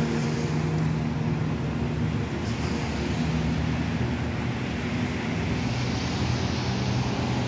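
A motor vehicle's engine humming steadily, loudest in the first couple of seconds and fainter after, over a constant hiss of rain.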